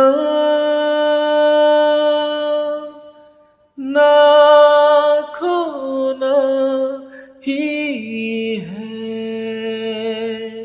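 A man singing a slow Hindi song with no backing, holding one long note on "paana" for about three seconds. After a short silence he sings the next phrase, "na khona hi hai", with pitch bends and a wavering melisma.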